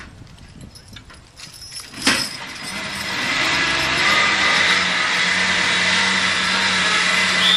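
Hydraulic pump on a horse-pulling dynamometer truck droning with a steady whine as a team of draft horses drags the truck, the pump braking it to hold the pulling load. It comes in with a sharp knock about two seconds in and grows louder, after a few light clinks before it.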